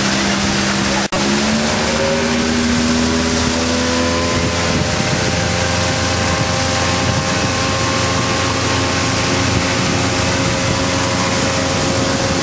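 Motorboat engine running, its pitch rising for about three seconds as it speeds up and then holding steady at the higher speed, over a steady rush of wind and water. The sound cuts out for an instant about a second in.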